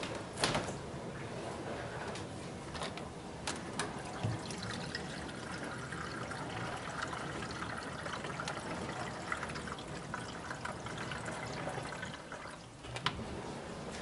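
Water pouring steadily from a filter pitcher into an electric kettle for several seconds. A few sharp clicks and knocks from handling the refrigerator door and shelves come in the first few seconds, and one more near the end.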